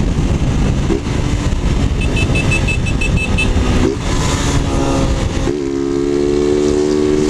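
Motorcycles with loud 'de lata' straight-through aftermarket exhausts running hard at speed, the engine note holding steady and then jumping in pitch a few times as they shift and accelerate, over heavy rumble from riding. A quick run of short high beeps sounds briefly in the middle.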